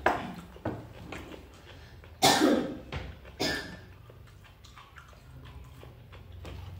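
A man coughing twice, about a second apart, near the middle.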